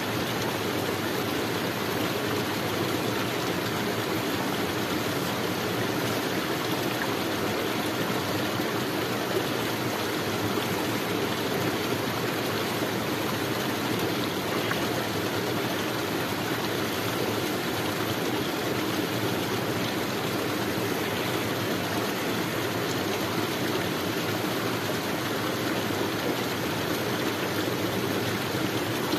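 A stream running steadily: an even, unbroken rush of flowing water.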